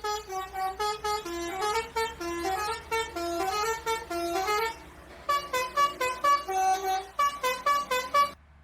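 Basuri 'telolet' multi-tone bus horn playing a quick tune of short stepped notes that go up and down. It breaks off briefly about halfway, starts again, and stops just before the end.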